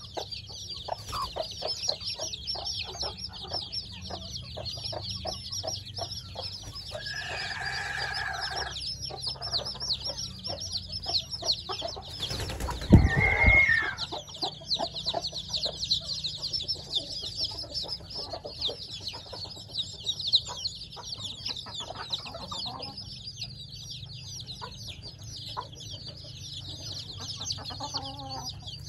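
A brood of week-old chicks peeping continuously, many high, short cheeps overlapping. A lower, longer call from an adult chicken comes about a quarter of the way in, and a sudden loud sound with a call on top comes about halfway through.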